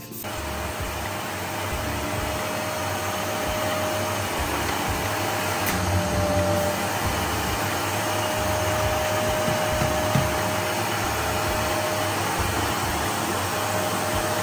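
Household vacuum cleaner starting up and running steadily with a steady whine, its hose nozzle held on the valve of a vacuum storage bag to suck the air out of it.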